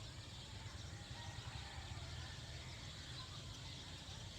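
Faint outdoor background: a steady low rumble under a constant hiss, with a few faint bird chirps.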